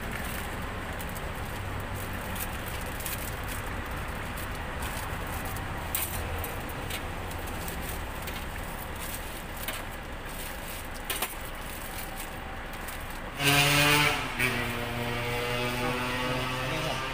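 Steady street traffic rumble, with a motor vehicle passing close about thirteen seconds in, loud briefly and then fading. A few light clicks of metal tongs against the stall's steel rack come earlier.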